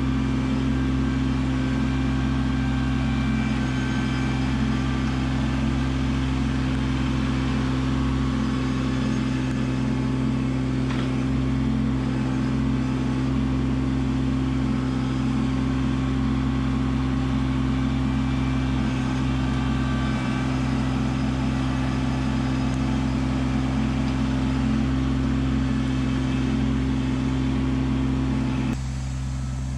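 Kubota LX2610 compact tractor's three-cylinder diesel engine running steadily as the root rake grapple pushes into the ground. The sound drops a little about a second before the end.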